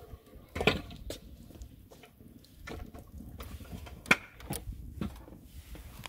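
Metal skewers knocking and clinking against the steel rim of a charcoal grill (mangal) as skewers of pork are laid across it: a few separate knocks, the sharpest just under a second in and about four seconds in.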